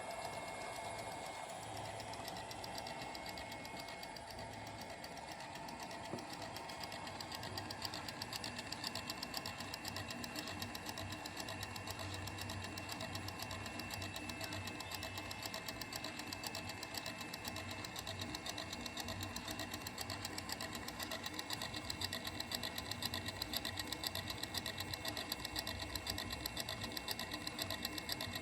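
Homemade lathe/mill machine running: its motor and spindle make a steady whine with a rapid, even clatter, a little louder from about seven seconds in.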